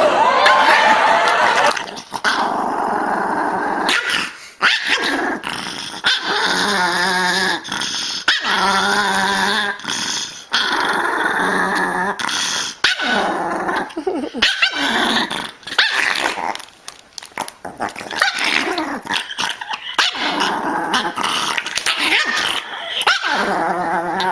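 Dogs growling and barking in a run of short, separate bits that start and stop abruptly.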